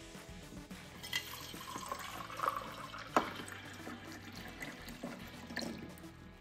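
Water running from the spigot of a glass beverage dispenser into an empty tomato sauce can, filling it, with a few light knocks along the way, the sharpest a little after three seconds in.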